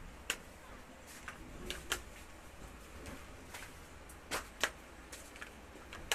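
A ceramic hair flat iron clicking as its plates are clamped shut and opened on sections of hair: about seven sharp clicks, unevenly spaced, with a low steady hum underneath.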